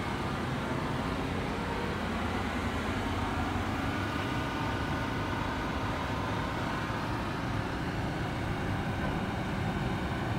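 Steady background rumble and hum of vehicles or machinery, with no distinct events.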